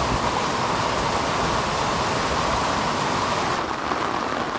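Muddy rainwater runoff gushing down a gully onto a road, a steady rushing of water. About three and a half seconds in it gives way to a duller, softer hiss of rain on a wet street.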